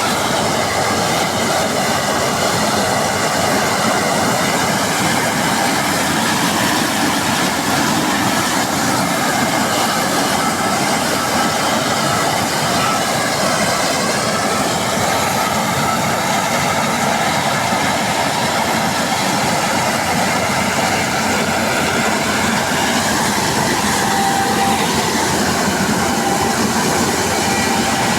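Combine harvester running under load, a loud, steady mechanical noise of engine and working machinery that holds even throughout.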